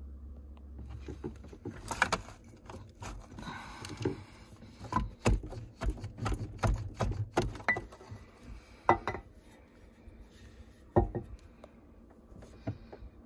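Irregular clinks and knocks of metal engine parts being handled, as the aluminium cylinder head of a Sea-Doo Rotax 951 two-stroke engine is lifted and turned over.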